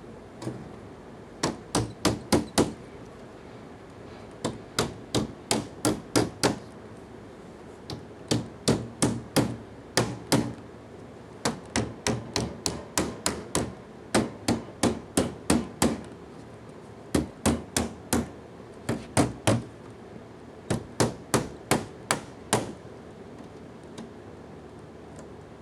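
Hammer blows in repeated quick bursts of four to eight strikes, about four a second, with short pauses between bursts: a lathe's shipping crate lid being hammered open.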